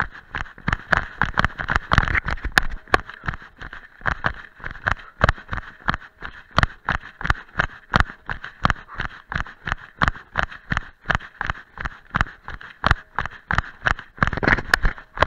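Running footsteps of trail shoes striking a dirt path covered in dry leaves during a fast downhill run, in a quick, even rhythm of about three footfalls a second. Heard through a camera strapped to the runner's chest, with a steady hiss beneath the steps.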